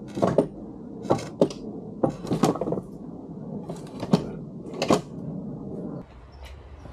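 A dozen or so irregular sharp knocks and clatters over about five seconds, some in quick pairs, then they stop.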